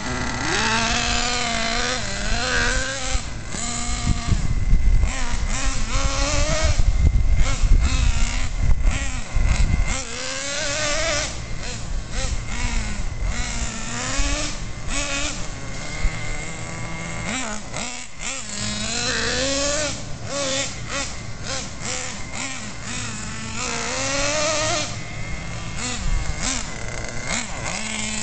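Traxxas Jato 3.3's small two-stroke nitro glow engine revving up and down over and over as the RC car accelerates and slows, being broken in on 10% nitro fuel rather than run flat out. A loud low rumble sits under it during roughly the first ten seconds.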